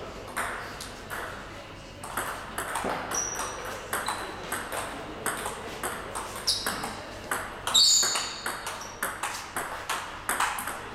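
Table tennis ball clicking off paddles and the table in quick succession during rallies, with brief high squeaks of sports shoes on the hall floor, loudest about eight seconds in.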